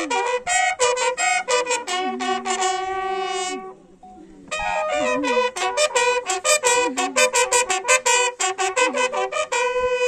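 Bugle call sounded as a funeral salute. Quick, repeated brass notes, with one long held note about three seconds in and a short break near four seconds, then another run of rapid notes.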